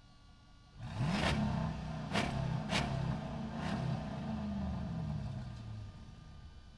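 Truck engine pulling away and accelerating, its pitch rising and then falling as it passes and fades, with four sharp knocks along the way, heard in the echo of a parking structure.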